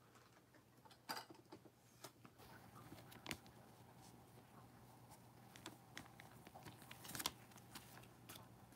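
Faint, scattered clicks and rustles of gloved hands handling trading cards, over a low steady hum.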